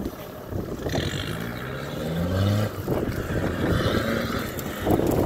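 4x4 recovery vehicle's engine pulling under load on a tow rope, revving up with a rising note about a third of the way in, then easing off. There is a brief louder thump near the end.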